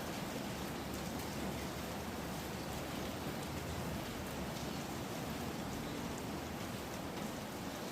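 Food cooking in a pot on the stove, giving a steady hiss and sizzle with faint crackles throughout.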